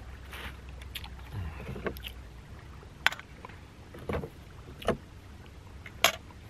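Clicks and knocks of a knife and fork and hands on a plastic chopping board while a bread roll is filled, about six in all at irregular spacing, the loudest two sharp. A low steady rumble underneath fades out a little before halfway.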